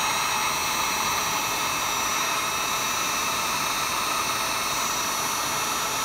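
Wagner heat gun running steadily, blowing hot air to shrink adhesive-lined heat-shrink tubing over crimped wire connectors.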